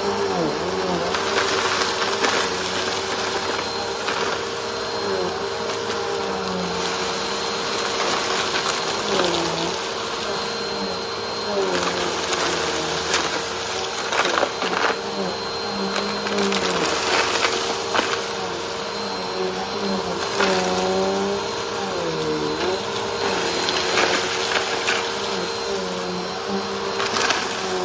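Vacuum cleaner running over a rug with a steady motor hum and high whine, its lower tone wavering and dipping every few seconds, while crushed food crumbs crackle and rattle as they are sucked up.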